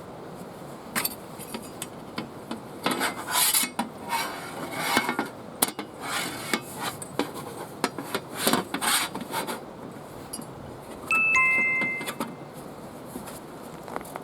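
Rubbing, rustling and light clicks and knocks of a folding camp side table and its packaging being handled and unpacked. About 11 seconds in, a short two-note beep steps down in pitch.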